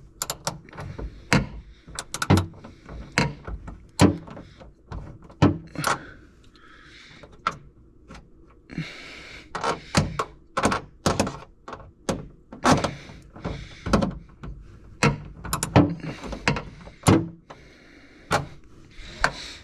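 A small 10 mm ratchet working a taillight mounting bolt loose inside a car trunk: a long run of sharp clicks and knocks, roughly one or two a second, some coming in quick clusters.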